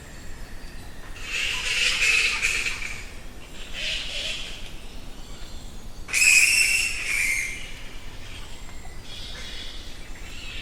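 Flying foxes screeching and squabbling in the trees: three bouts of harsh, shrill calls, the loudest about six seconds in. A steady, rapidly pulsing chorus runs underneath.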